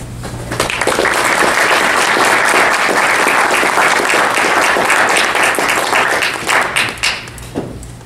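Audience applauding, starting about half a second in and dying away to a few last scattered claps near the end.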